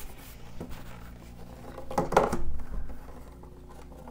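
Picture frame being hung on a wall, knocking and scraping against the wall and its hook, with a short cluster of knocks about two seconds in.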